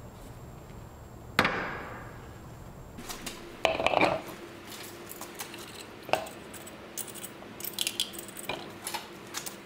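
Scattered short metallic clinks and rattles of lug nuts being handled and spun onto the wheel studs by hand. A single sharp knock comes a little over a second in.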